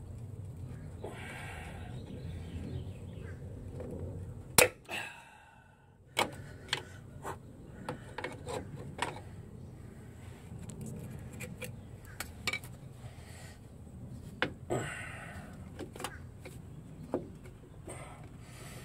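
Short metallic clicks and clinks of needle-nose pliers against drum-brake shoes and springs as a brake spring is worked and hooked into place, with one loud click about four and a half seconds in.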